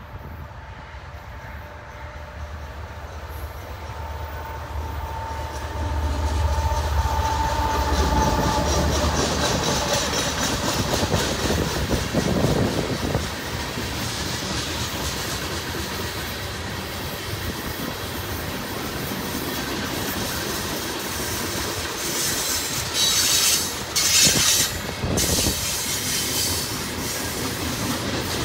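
Union Pacific EMD SD70ACE diesel locomotive approaches and passes with a low engine rumble, which grows louder about six seconds in. Behind it, loaded ballast gondolas roll by with clickety-clack over the rail joints, and the wheels squeal in two short bursts near the end.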